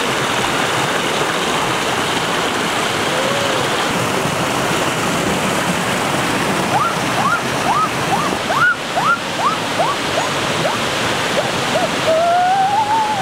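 Steady rushing of water spilling over rocks in a small stream cascade. In the middle comes a quick string of about a dozen short chirping calls, about three a second, and near the end a person's drawn-out rising then falling "ooh".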